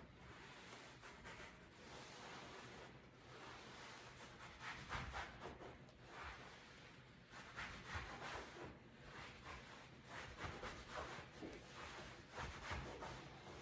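Faint, irregular rubbing of a cloth wiping over a leather couch, in repeated strokes that come thicker in the second half.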